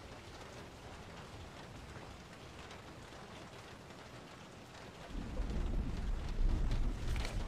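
Steady rain, with a low rumble of thunder rolling in about five seconds in.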